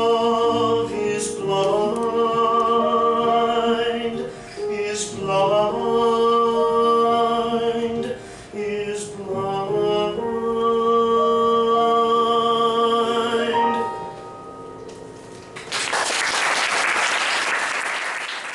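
A slow song sung with long held notes over instrumental accompaniment, ending about fourteen seconds in. About two seconds later an audience starts applauding.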